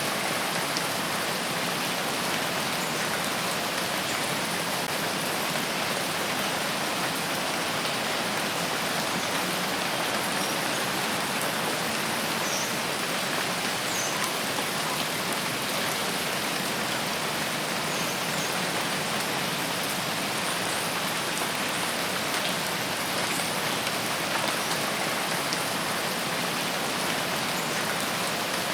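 Rain falling steadily, a dense, even hiss that does not change in strength.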